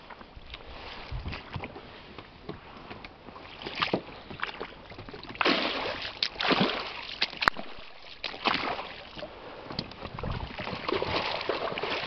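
Water splashing and sloshing against an inflatable boat's hull and a person's wading boots as the boat is pushed off into shallow water, in several uneven bursts.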